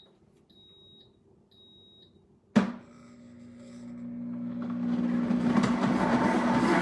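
Pampered Chef Deluxe Cooking Blender beeping twice with short high tones after start is pressed, then a click about two and a half seconds in as its motor kicks on. The motor runs with a low hum while the whirr of blades grinding tomatoes and garlic for soup builds steadily louder.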